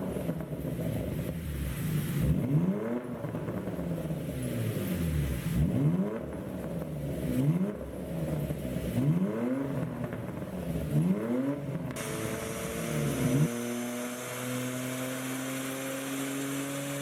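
2016 Porsche Macan GTS's twin-turbo V6 revved in about six blips, each climbing and falling back, its exhaust tuned in software to pop on lift-off. About thirteen seconds in the revving stops and a steady, slowly rising whine is left.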